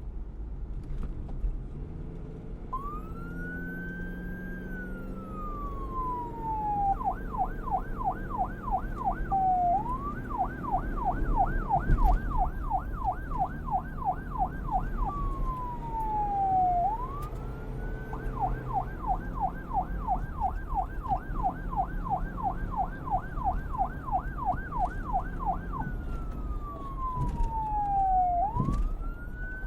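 Police car siren alternating a slow wail, rising and then falling, with runs of fast yelp cycles of about four a second, over a steady low rumble of traffic or engine noise. The siren comes in about three seconds in.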